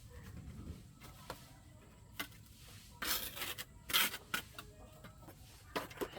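Scattered knocks and clicks of objects being handled, with two louder scraping sounds about three and four seconds in.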